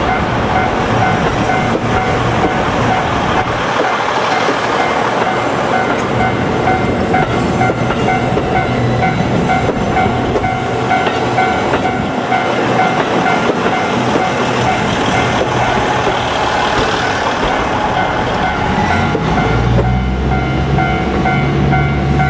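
KiYa E195 series long-rail transport train passing at close range, a loud steady rumble of wheels on rail. Steady ringing tones run through it, in keeping with a level-crossing alarm, and a low hum comes in near the end.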